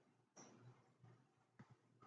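Near silence: room tone with a faint low hum and a couple of faint short sounds.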